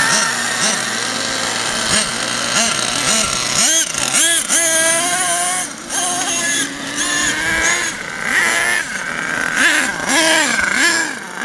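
Nitro RC truck's small two-stroke glow engine being revved in bursts, its pitch rising and falling again and again, with several quick blips near the middle and later.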